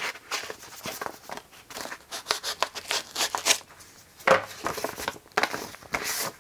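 Paper and packing being handled, rustling and crinkling in short irregular bursts, the sound of unfolding a letter and rummaging through a care-package box.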